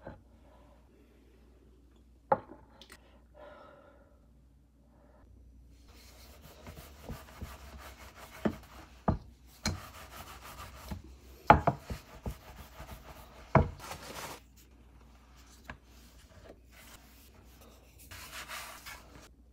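Rolling pin rolling out spinach pasta dough on a wooden cutting board: a soft rubbing, with several sharp knocks of the pin on the board, most of them in the middle stretch.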